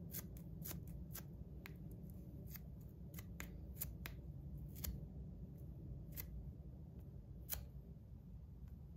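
Small irregular clicks and light scraping as a thin metal blade pries and scrapes grip tape and adhesive off a metal slider fidget's plate.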